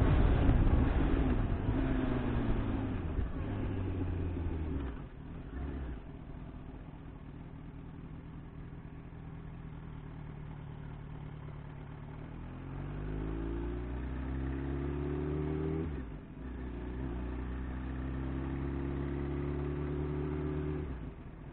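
Sport motorcycle engine heard from the rider's seat, slowing from speed with wind rush and falling revs over the first few seconds, then running at low revs. About halfway through the revs climb, break off briefly, climb again, and drop away near the end as the throttle closes.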